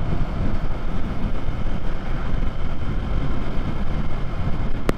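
Wind rush on the microphone over a Yamaha MT-03's 321 cc parallel-twin engine running steadily at highway cruising speed, about 55 mph. A single sharp click near the end.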